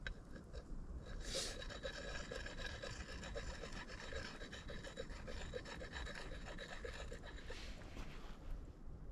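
Axe edge being sharpened: a sharpening tool rasps along the steel in quick repeated strokes, with a faint steady ring from the blade. It starts about a second in and stops shortly before the end.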